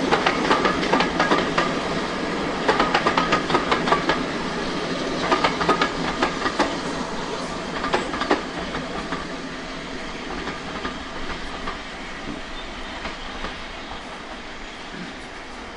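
Wheels of a train of passenger coaches clicking over rail joints as it passes and draws away, with a steady rumble beneath; the clicks thin out and the sound fades over the second half.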